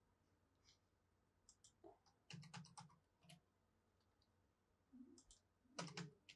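Faint clicking in two short clusters, about two and five seconds in, from writing digits by hand into a computer drawing program with a pointing device.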